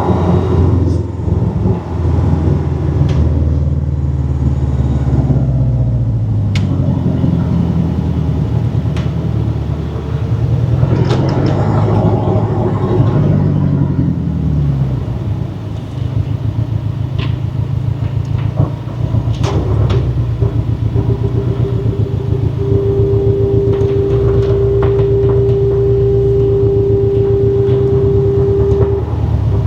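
Porsche 718 Cayman's turbocharged flat-four under way, with intake and turbo noise through an aftermarket turbo inlet pipe. The engine note climbs and drops several times with gear changes over the first half, then holds fairly steady. A steady high tone sounds through the last third, with a few sharp clicks along the way.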